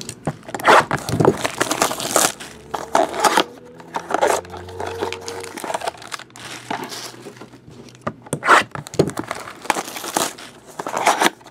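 Foil wrapper of a trading-card pack crinkling and tearing as it is handled and opened, in irregular bursts of crackle.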